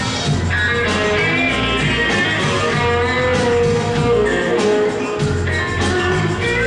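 Live band playing an instrumental passage: electric guitar over drums and keyboard, with a steady beat.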